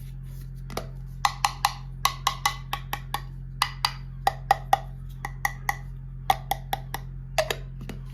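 Irregular sharp taps and clicks of hard plastic toy pieces being handled and set down, about two to four a second with short pauses, each with a brief ring.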